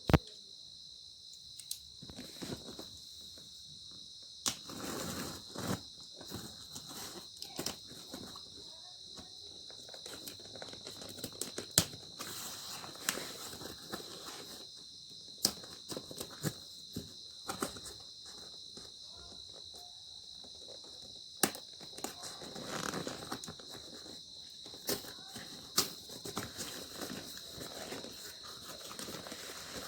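Steady high-pitched insect chirring throughout, with scattered sharp clicks and short rustles of handling on top, the loudest click right at the start and others about 12 and 21 seconds in.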